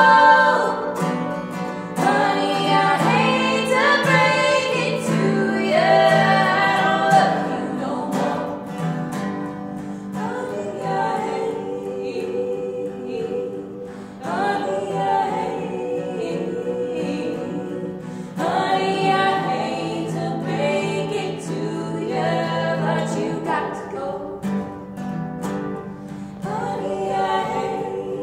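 Women singing a folk song to strummed acoustic guitars, played live and unplugged.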